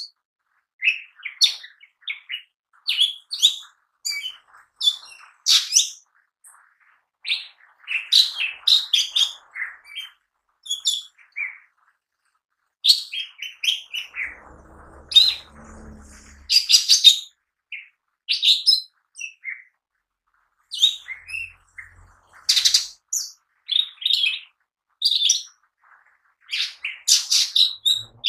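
Lesser green leafbird (cucak ijo mini) singing energetically: quick, varied phrases of high chirps, whistles and trills, broken by short pauses.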